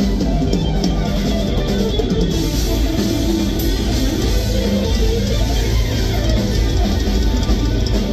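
A live rock band playing loudly: electric guitar carrying a moving melodic line over electric bass and a drum kit.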